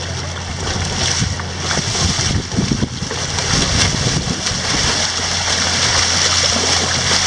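Shallow water splashing and churning as a shark on a rope thrashes at the water's edge and a person wades beside it, louder from about two seconds in.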